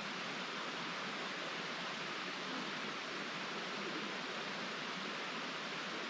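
Steady rush of a creek's water flowing over rocks, even and unbroken.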